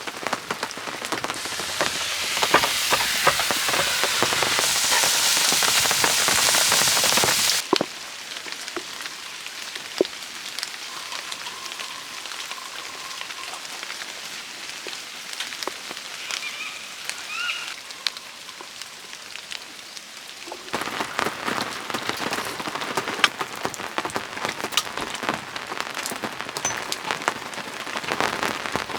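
Rain falling, with many small drops pattering. It is heavy for the first seven and a half seconds, then cuts to lighter, sparser dripping, and turns heavier again about twenty seconds in.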